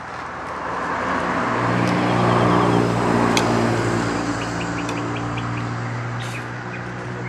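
A motor vehicle's engine hum swells over the first few seconds and then slowly fades, with a quick run of high bird chirps midway.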